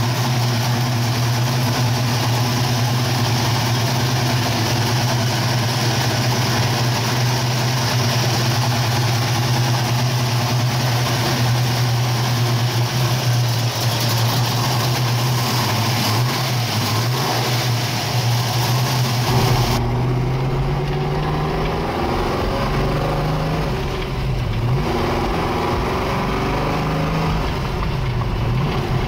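1969 Camaro Z/28's 302 V8 with a cross-ram dual-four-barrel intake idling steadily. About two-thirds of the way through it is heard from inside the cabin, duller and deeper, its pitch dipping and rising slightly a few times.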